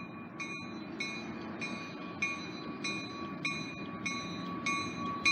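Approaching diesel freight train rumbling low and steady, with a warning bell ringing evenly, about three strikes every two seconds.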